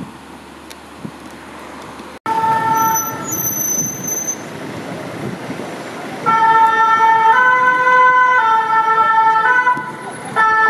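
French two-tone fire brigade siren on a VSAV ambulance, alternating between two close notes about once a second. It is loudest from about six seconds in. Before an abrupt cut about two seconds in, only street traffic noise is heard.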